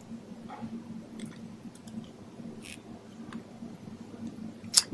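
Quiet room tone with a steady low hum, a few faint small ticks, and one sharper click near the end.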